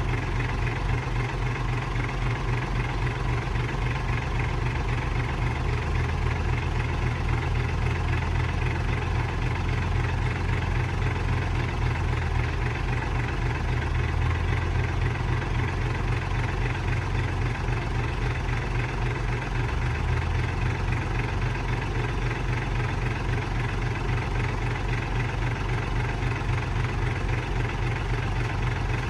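Heavy machine engine running steadily at an even, low speed, with a deep pulsing throb.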